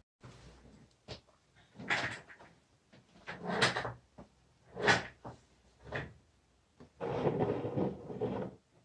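Knocks and scrapes of a desk chair being pulled out and sat in, one after another about a second apart. Near the end comes a longer scraping as a plate is slid across the wooden desktop.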